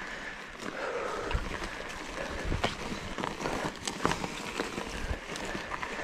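Trek Fuel EX 7 mountain bike rolling over a rough forest trail: steady tyre and ground noise with frequent irregular knocks and rattles from the bike.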